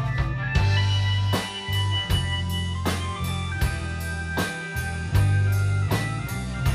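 Live rock band playing: a drum kit keeps a steady beat, with a strong bass line and electric guitar holding long notes.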